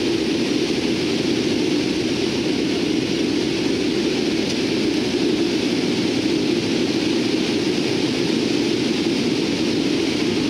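Steady, loud drone of a Lockheed C-130T Hercules's four Allison T56 turboprop engines, heard from inside the cargo hold.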